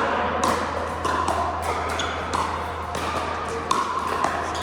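Pickleball play: sharp pops and taps of paddles and balls, about a dozen scattered irregularly, with short high squeaky tones between them.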